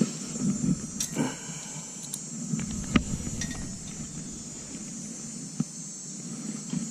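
Steady high-pitched insect chorus, with a few sharp clicks and knocks from handling the fish and tackle, the loudest about three seconds in.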